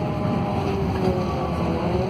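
Scania K280UB city bus under way, its Scania DC09 five-cylinder diesel running steadily, heard from inside the passenger cabin. A faint whine rides over the low engine rumble and slides slightly down in pitch.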